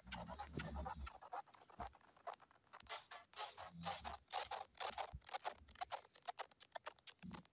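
Rapid, irregular scratchy crackles and short noise bursts with no steady tune: the audio of many logo clips layered together and distorted by video-editor effects.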